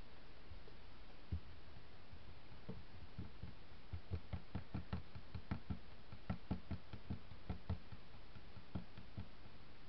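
Wooden stir stick working thick acrylic pouring paint in a plastic cup, clicking against the cup's sides in a run of light taps, several a second, thickest in the middle.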